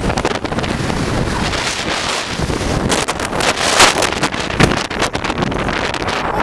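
Strong mountain wind buffeting the camera microphone, a constant rushing roar with harder gusts about halfway through.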